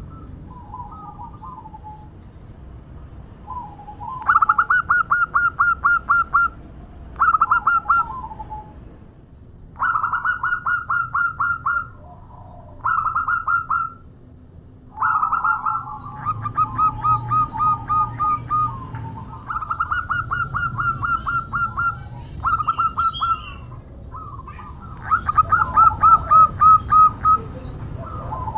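Zebra dove (perkutut) cooing in about eight bouts of rapid, evenly spaced staccato notes, each bout a second or so to a few seconds long, with short pauses between. The uploader presents it as a female calling for a male.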